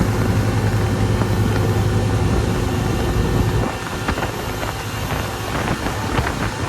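Tour boat's engine running with a steady low hum that drops away suddenly about three and a half seconds in, leaving a softer rumble.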